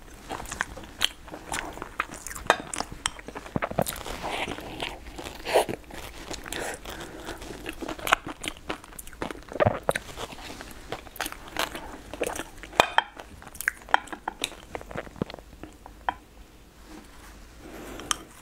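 A person eating with chopsticks: chewing and biting mouth sounds, with irregular sharp clicks of chopsticks against ceramic bowls.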